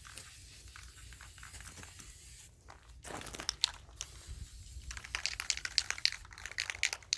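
Aerosol can of black spray paint dusting a foam archery target: a light hiss, then many short quick spray bursts from about three seconds in.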